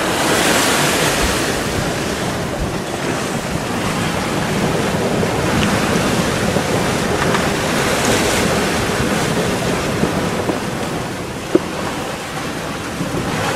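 Rough sea rushing and breaking along the hull of a Sadler 25 sailing yacht, with strong wind buffeting the microphone. There is a single short knock about eleven and a half seconds in.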